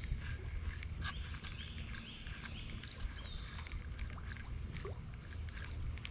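Birds chirping in short, scattered calls over a low steady rumble.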